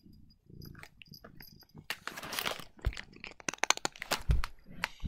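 A plastic cat-treat pouch being crinkled and handled: repeated sharp crackles and clicks that grow busier after about a second, with two dull thumps in the second half.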